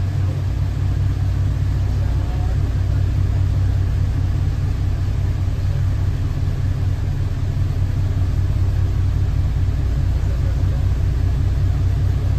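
Boat's engine idling with a steady low hum, heard from the helm inside the cabin.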